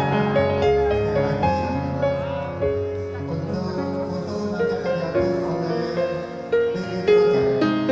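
Instrumental music: a slow melody of held notes moving step by step.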